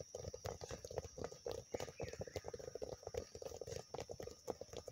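Footballs being tapped quickly and repeatedly by several players' feet on grass in a ball-touch drill: an uneven run of light thuds, several a second.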